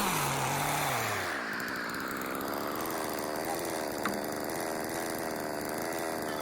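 Stihl 660 two-stroke chainsaw engine dropping in pitch during the first second, then idling with a steady hum.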